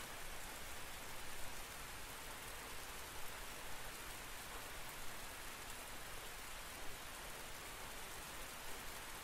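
Steady rain falling, an even hiss of drops with a few slightly louder spatters now and then.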